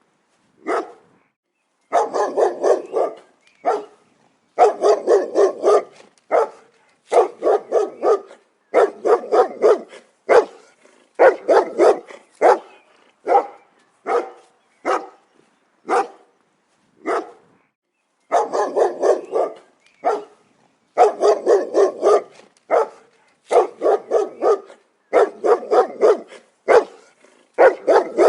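A dog barking repeatedly, sometimes single barks and sometimes quick runs of several, with short silent gaps between them.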